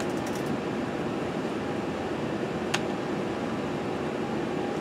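Steady whirring hum of a desktop PC's cooling fans, with a single sharp keyboard keypress click a little under three seconds in.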